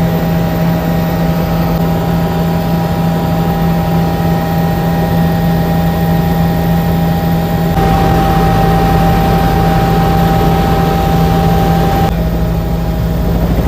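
Helicopter engine and rotor noise heard from inside the cabin: a loud, steady drone with a constant whine on top, briefly louder and fuller about eight seconds in, then settling back about four seconds later.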